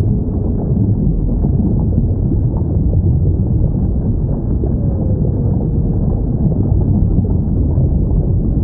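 Underwater recording of whales: a steady low rumble of sea noise with faint, drawn-out whale calls gliding downward, the clearest about five seconds in.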